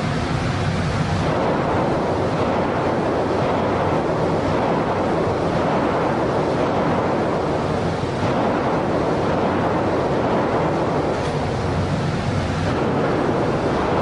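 Steady, loud rushing air noise, typical of an indoor range's ventilation blowing downrange past the microphone. No shot is fired.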